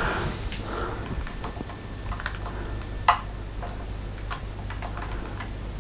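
Small clicks and taps of resin figure parts being handled and tried in place, with one louder click about three seconds in, over a low steady hum.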